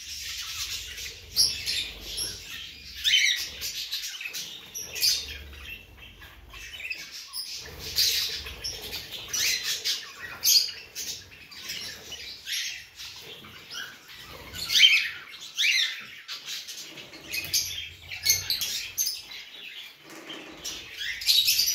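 Caged birds, budgerigars and a young cockatiel among them, chirping and chattering in many short, high calls, with a few louder sliding calls.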